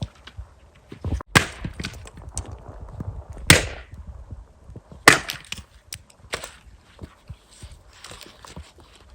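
Wood cracking and splintering: four loud sharp cracks with smaller crackles between them, as when dry branches are snapped.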